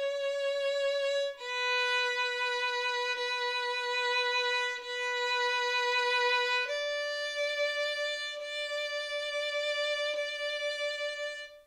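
Solo violin playing slow, long bowed notes: a short note, a step lower held about five seconds, then a higher note held until it stops just before the end.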